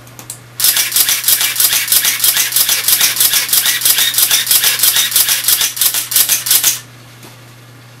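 Contax RX 35 mm SLR's mechanism running, a rapid even clicking of about six or seven clicks a second that starts about half a second in and stops after about six seconds.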